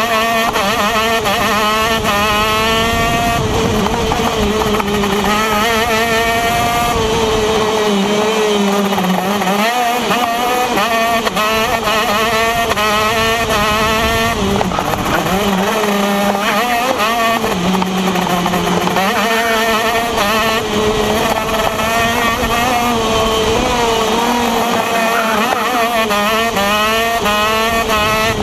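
125cc TM KZ10 two-stroke shifter kart engine at race pace, heard from on board: its pitch climbs again and again as it accelerates through the gears, then drops back at the shifts and braking for corners.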